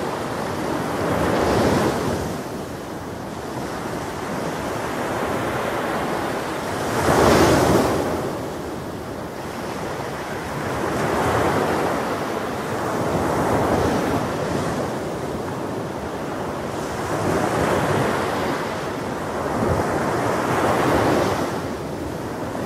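Ocean surf, waves washing in and swelling and fading every few seconds, with a rush of wind. The loudest surge comes about seven seconds in.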